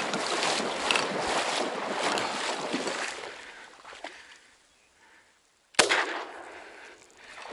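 Rustling, scuffing movement noise dying away about three seconds in to near silence, then a single sharp, loud bang near six seconds that rings away over about a second.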